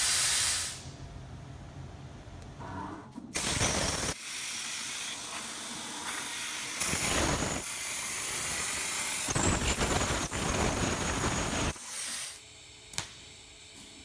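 CNC plasma cutter cutting mild steel sheet: a loud, steady hiss of the plasma arc and its air blast that swells and eases several times as the torch works. Near the end it drops to a quieter hum with a couple of sharp clicks.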